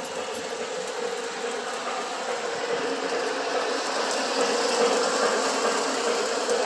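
Lionel O-gauge Southern Pacific cab-forward steam locomotive and its ore cars running fast on three-rail track: a steady mechanical whirr and rattle of motor, gears and wheels with a constant buzz, growing louder from about the middle as the train passes close.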